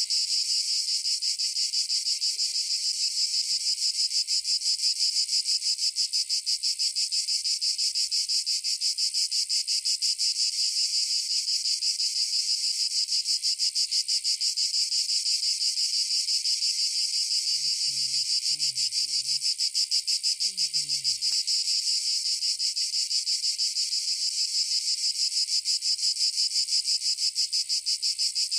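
Dense chorus of insects: a steady, shrill, high buzz with a fast, even pulse that never lets up.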